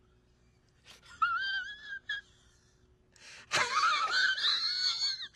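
High, wavering wail in two bouts: a brief one about a second in, then a louder, longer one that opens with a sharp click about three and a half seconds in.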